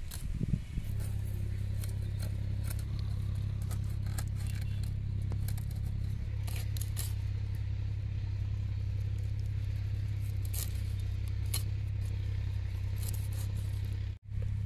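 Irregular sharp clicks and snips of a koi fish (climbing perch) being cut, over a steady low hum that cuts off abruptly near the end.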